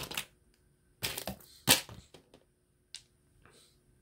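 Loose jewelry beads clicking against each other as they are turned over in a palm: a few scattered sharp clicks, the loudest a little under two seconds in.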